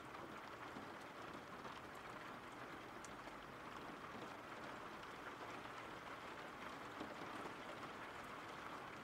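Steady rain falling: a soft, even hiss with no breaks.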